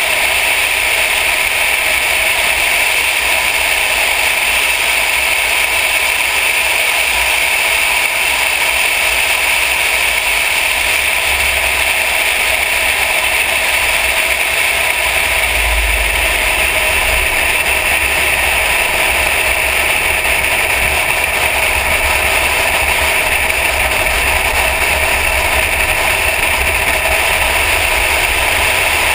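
Steady wind rush over a bonnet-mounted camera on a car moving fast, with a low, uneven buffeting rumble underneath.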